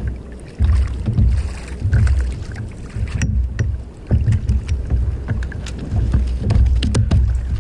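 Fishing kayak on the sea: uneven low rumbling bursts of water and wind buffeting the hull and microphone, with a run of sharp clicks in the last couple of seconds.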